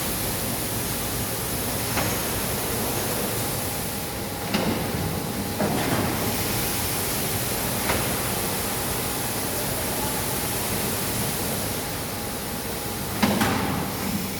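Sack-filling machine running: a steady mechanical noise with a faint steady hum, broken by a few sharp knocks at irregular intervals, the loudest near the end.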